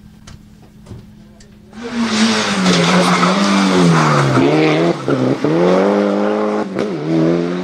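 Mitsubishi Lancer Evolution rally car's turbocharged four-cylinder engine comes in loud about two seconds in, its note falling steadily, then dropping and jumping back twice in quick succession about halfway through before holding and dipping again near the end, as it works through a corner at full commitment. A hiss of tyres and spray runs under the engine.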